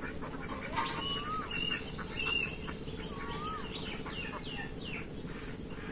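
Birds calling over a steady high drone of insects: short whistled notes that dip and rise, with a run of quick downward-sliding calls in the middle.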